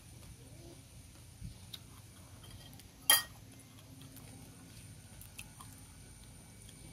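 Sator (stink bean) pod being twisted and split open by hand over a plastic tray: a few faint ticks and one loud, sharp click about three seconds in.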